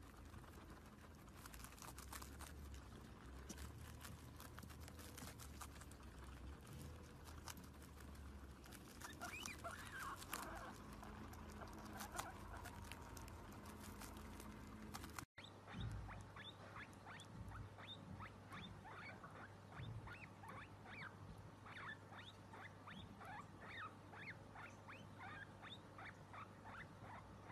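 Several guinea pigs crunching and chewing raw broccoli, a dense patter of small bites, with a few short squeaks around the middle. After a sudden break about halfway, a guinea pig gives a run of short high squeaks, about two a second.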